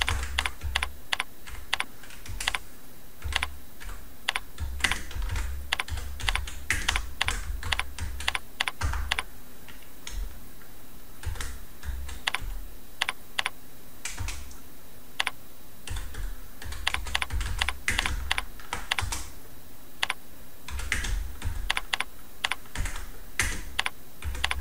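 Typing on a computer keyboard in runs of quick key clicks, with short pauses between words and a longer lull partway through. A dull low thump sits under the runs of keystrokes.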